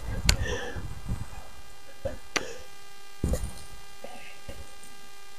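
A steady electrical hum with a few faint clicks and knocks from handling a portable propane grill and the regulator on its propane cylinder.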